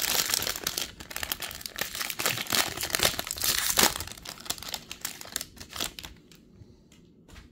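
Foil wrapper of a Topps baseball card jumbo pack crinkling and tearing as it is ripped open and peeled back. It dies down about six seconds in, as the stack of cards comes out.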